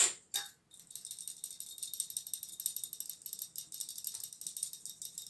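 Wire-mesh kitchen sieve shaken and tapped over a steel mixing bowl, sifting a dry flour and cocoa mix: a fast, even, light rattle. It follows a couple of short knocks at the start.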